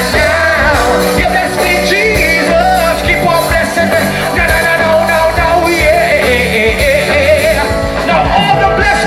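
Live gospel music: a band playing with a lead voice singing over it.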